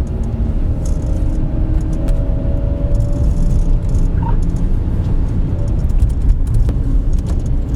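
Steady low rumble of a car's engine and tyres heard from inside the cabin while driving slowly, with scattered light clicks and rattles.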